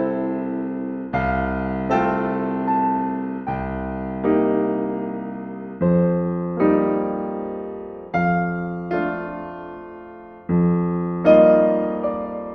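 Slow, gentle solo piano music: chords struck in pairs, each left to ring and fade before the next.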